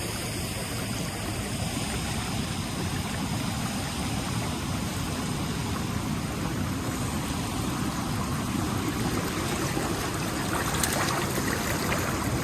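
River water flowing, a steady rush without a break.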